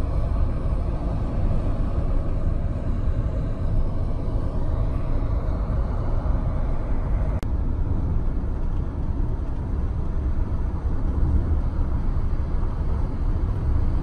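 Steady low road rumble heard inside a moving car's cabin, broken by a sharp click and a brief dropout about halfway through.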